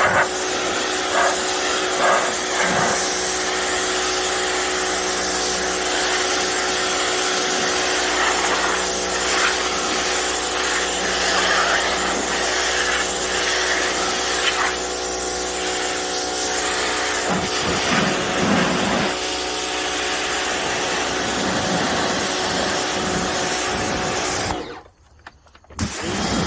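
Pressure washer spraying: a steady, loud hiss over an even machine hum. It cuts out for about a second near the end, then starts again.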